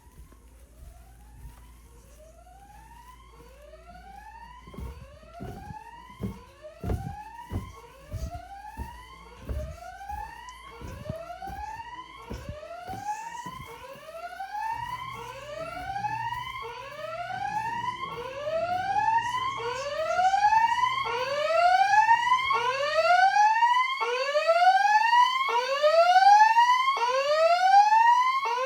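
Fire alarm sounding a whoop tone: a rising sweep repeated about once a second, growing steadily louder. A few low thumps sound between about five and nine seconds in.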